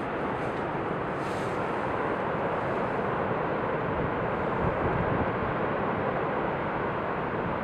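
Niagara Falls: a steady rushing of water pouring over the ice-covered American Falls.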